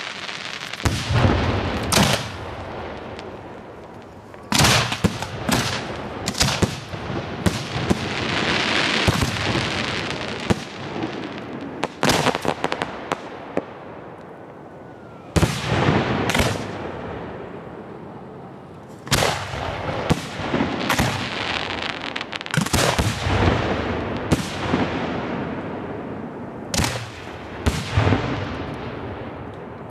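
Professional display fireworks: aerial shells going off in a string of sharp booms and reports, several in quick clusters. Hissing and crackling from the bursts fill the gaps between them.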